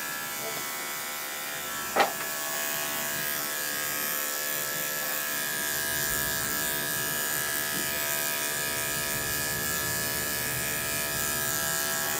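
Andis five-speed electric dog clippers running steadily while clipping a shih tzu's coat, with one sharp click about two seconds in.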